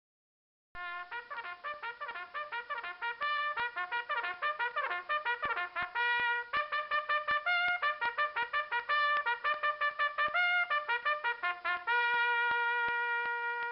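A trumpet playing a quick melody of short, detached notes, several a second, ending on one long held note. It starts after under a second of silence.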